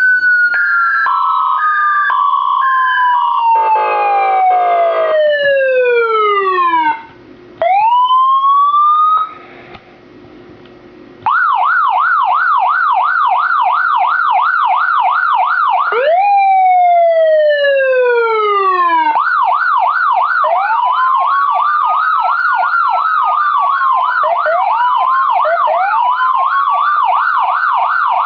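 Electronic police siren module cycling through its tones: a long falling wail with a few short beeps and a brief buzzy horn over it, a quick rising sweep, then a fast yelp of about two to three sweeps a second. Midway a single rise-and-fall wail cuts in, and then the fast yelp returns with a slower wail layered over it.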